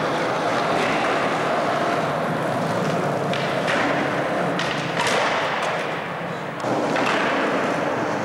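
Skateboard wheels rolling on a concrete parking-garage floor, with a few hard thuds of the board hitting the ground.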